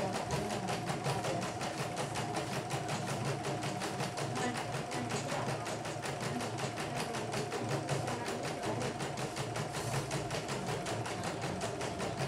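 YOKO portable computerized embroidery machine stitching out a design, its needle going in a rapid, even rhythm over a steady motor hum. This is a test stitch-out after servicing, and the machine is running smoothly.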